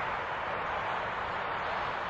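Steady hiss of wind and rain noise recorded by the camera and processed into a special effect, filtered so it sits mostly in the middle range with little deep or high sound.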